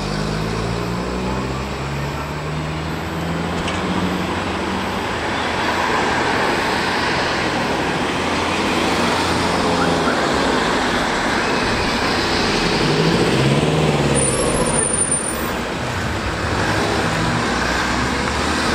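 Steady road traffic noise: motor vehicles running past, with engine sounds rising and falling over a constant roar.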